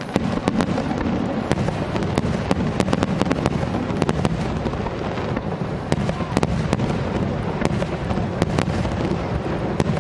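A fireworks display: a dense low rumble of bursting shells with many sharp bangs and crackles in quick, irregular succession.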